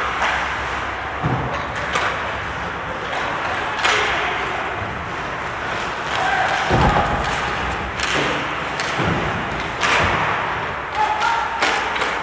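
Ice hockey play up close: skate blades scraping the ice, with several sharp knocks and low thuds of sticks, puck and players against the ice and boards.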